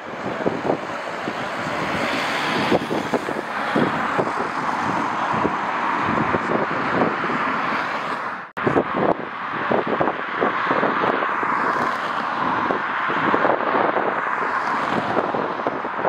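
A jet airliner's engines running, a steady noise, with gusty wind buffeting the microphone throughout. The sound cuts out for an instant about eight and a half seconds in.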